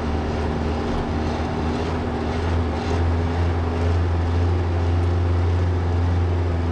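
Old fire truck's engine droning steadily as it drives, with a rushing noise of wind and tyres over it. The low hum grows a little louder about three seconds in.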